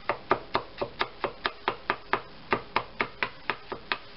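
Chef's knife chopping through shallot onto a bamboo cutting board, mincing it, in a quick steady rhythm of close to five knocks a second.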